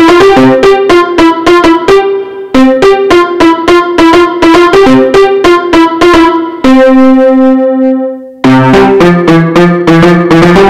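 Yamaha PSR-F51 portable keyboard played with a piano voice, heard straight from its line output: quick runs of notes with a short break about two seconds in, then a held octave that fades away, and near the end quick playing starts again with lower bass notes added.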